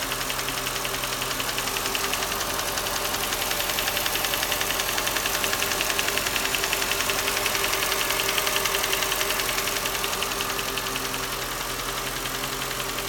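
Mercedes-Benz M113 5.0-litre V8 of a 2004 E500 idling smoothly with a fast, light tapping or knocking, not a sharp rap. The owner suspects lifter noise and has ruled out the belt-driven accessories.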